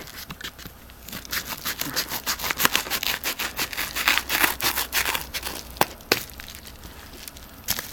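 A mailed package being torn open by hand: a few seconds of dense, scratchy tearing and rustling of the wrapping, then a couple of sharp clicks and quieter handling.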